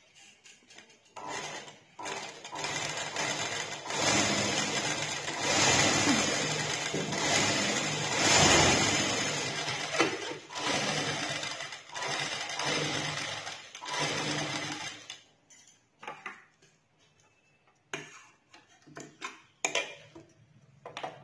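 A domestic sewing machine running as it stitches a seam through cloth, in a few stretches with brief stops, then stopping after about fifteen seconds. After it stops come a few short sharp clicks as the thread is snipped with scissors.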